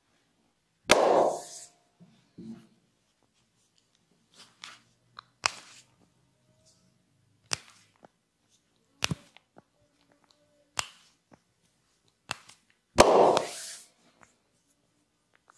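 Massage on bare skin by hand: two louder slaps about a second in and near the end, with scattered sharp clicks and pats in between.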